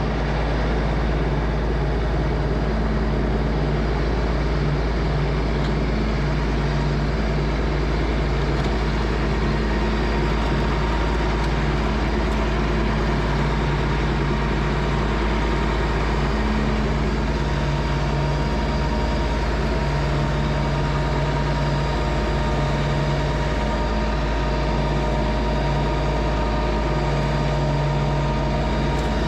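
LS MT225s compact tractor's diesel engine running at a steady speed while mowing with its belly mower deck.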